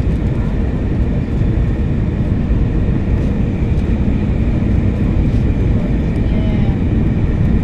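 Steady engine and airflow noise inside the cabin of an Airbus A321-200 airliner: a constant low rumble with a faint steady high tone above it.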